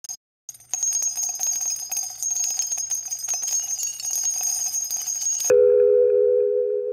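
Rapid high, bell-like chimes and jingles full of quick clicks, a glittery intro-title sound effect; about five and a half seconds in it cuts off sharply into a steady held keyboard-like chord as background music begins.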